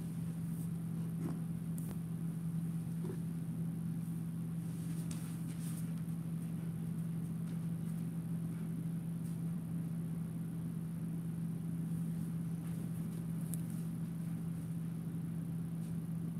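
A steady low hum, unchanging throughout, with a few faint clicks and taps over it.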